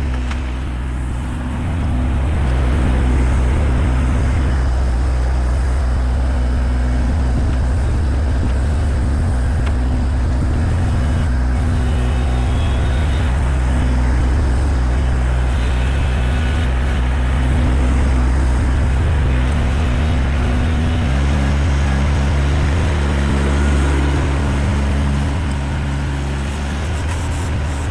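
Engine running steadily. It gets louder about two seconds in and changes note around twenty-one seconds in.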